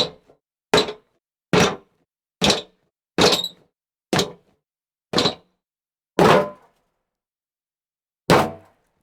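Foley recording of jumps landing on hollow wood: nine separate dull thunks, each with a short decay and silence between them. They come about one a second, spacing out toward the end.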